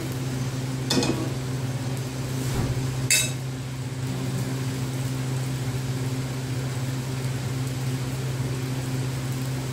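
Steady low mechanical hum, with two short metallic knocks about one and three seconds in, as of a frying pan knocking on the gas stove's grate.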